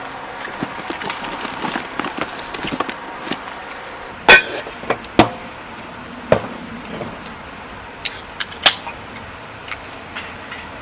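Irregular knocks and clatters with light rustling, like hard objects being handled and set down. Small clicks come first, then a few louder knocks, the loudest about four seconds in.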